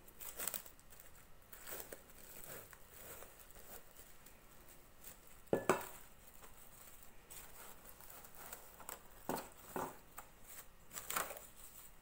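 Plastic cling film pulled off its roll and stretched over a glass bowl, crinkling and rustling in short bouts, with a louder sharp sound about halfway through and a few more near the end.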